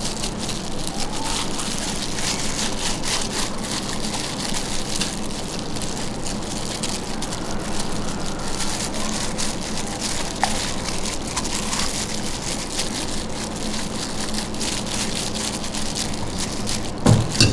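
Wet, crackly squishing of plastic-gloved hands rubbing a garlic and chili marinade into the meat of a butterflied suckling pig, going on steadily, with a faint low hum underneath.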